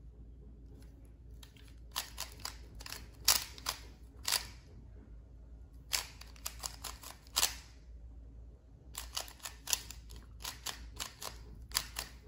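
Qiyi MS 3x3 magnetic speed cube being turned, its layers clicking in three quick bursts of turns with short pauses between, as it is scrambled for the next solve.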